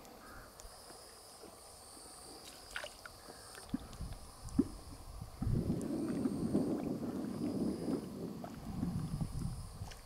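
Night insects chirring steadily in high-pitched pulsing trills, with scattered faint clicks. From about five and a half seconds in, a few seconds of louder low rustling noise come over them.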